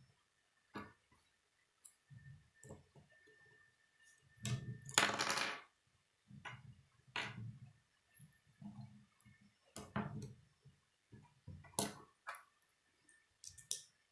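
Plastic K'nex construction pieces clicking and clattering as they are handled and snapped together, with a longer, louder rattle about five seconds in.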